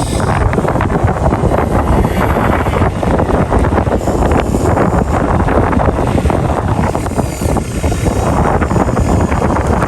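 Excavator engine running steadily, with wind buffeting the microphone.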